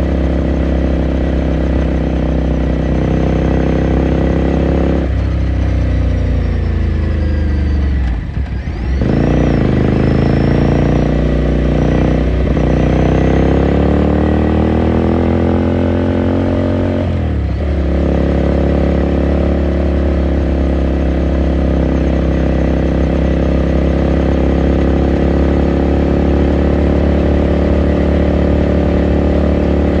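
2018 Ducati Scrambler Sixty2's air-cooled 399 cc L-twin running at a steady speed. The engine note falls as the bike slows, breaks briefly near a third of the way in, then climbs steadily as it pulls away again. It breaks once more at a gear change about halfway through and settles back to a steady cruise.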